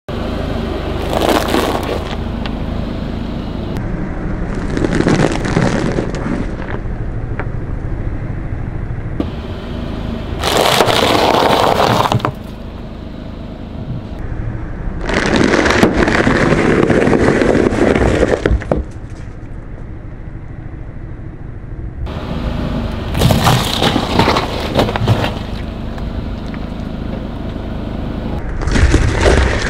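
A car tyre rolling over brittle and soft things on asphalt (crusty bread rolls, dry rice noodles, citrus fruit) and crushing them. It gives several separate bursts of crunching and cracking, each one to three seconds long, over the car's engine running low and steady.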